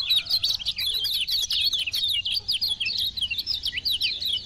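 Kecial kuning (a yellow white-eye) singing a fast, continuous twittering song of rapid chirps and quick swooping notes, cut off abruptly near the end.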